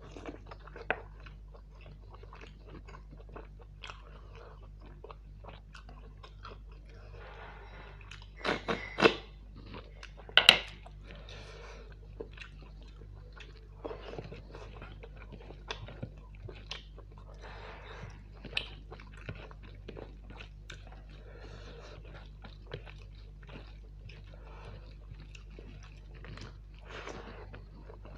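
Close-miked chewing and biting while eating mutton curry with rice and green chillies: moist mouth sounds and small clicks throughout, with a few loud bites about nine and ten seconds in. A low steady hum lies underneath.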